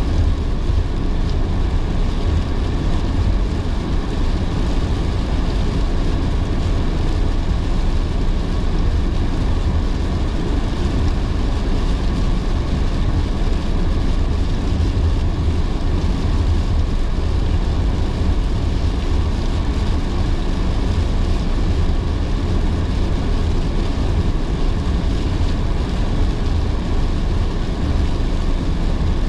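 A car driving in heavy rain: a steady low road rumble with an even hiss of tyres on wet road and rain.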